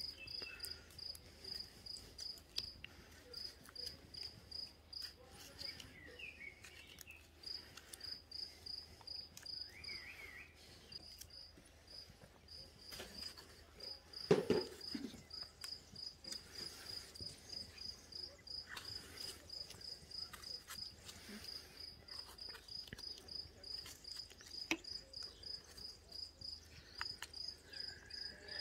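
A cricket chirping in quick, even pulses repeated several times a second, with faint clicks of a knife cutting tomatoes over a clay pot and one louder knock about halfway through.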